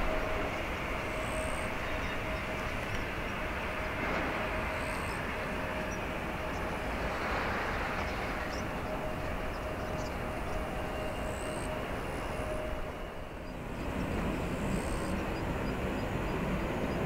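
Steady rushing noise of a JAL Airbus A350-900 taxiing, with a faint steady whine that fades out about three-quarters of the way through, where the noise briefly dips before picking up again.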